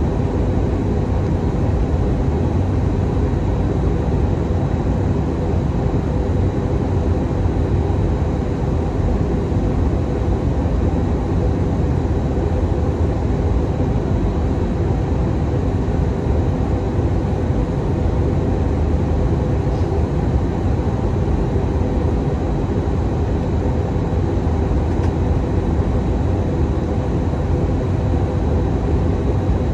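Steady cabin noise inside an Airbus A319-100 in flight on approach: the low rumble of its CFM56 jet engines and the rush of airflow over the fuselage, with a faint high whine held on one note.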